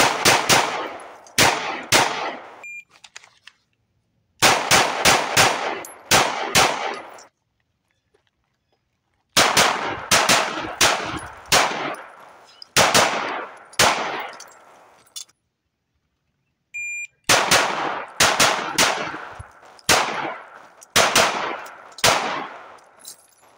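9mm semi-automatic pistol fired in quick strings of shots, several in each string. Each string stops sharply and is followed by a stretch of silence.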